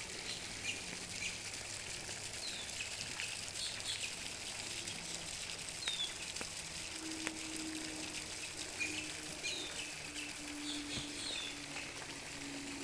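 Outdoor ambience at a bird pond: many short, high chirps from birds calling on and off throughout. About halfway through, a low steady hum joins in and comes and goes.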